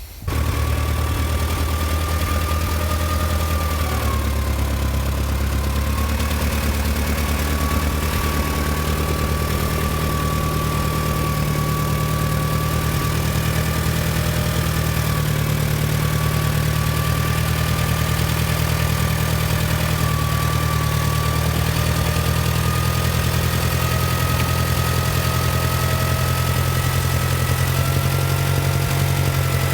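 Loader tractor's engine running steadily, with a low rumble and a thin whine above it that slowly rises in pitch, while the loader lifts a pallet.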